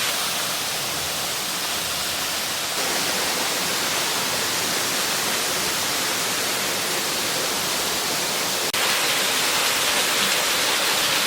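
Steady rush of water falling at Bambarakanda Falls, a waterfall about 263 m high. The sound shifts a little about three seconds in and breaks off for an instant near nine seconds, as between shots.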